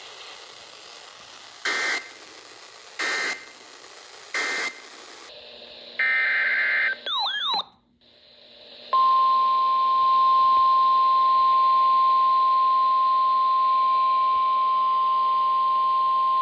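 Weather radio alert tones: three short bursts of SAME digital data, the end-of-message code closing the previous warning, then a longer data burst and a brief warbling glide. From about nine seconds in comes a steady single tone near 1 kHz, the 1050 Hz NOAA Weather Radio warning alarm that announces the next alert.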